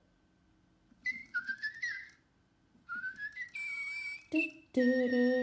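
Little Live Pets Tweet Talking toy parakeet making electronic whistled chirps through its small speaker: short gliding, rising tones in bursts starting about a second in, then a louder, buzzier pitched electronic sound near the end.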